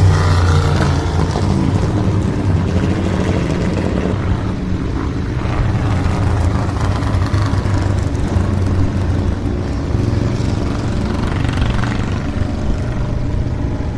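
Vintage racing motorcycle engines running loud, their pitch rising and falling as the bikes lap.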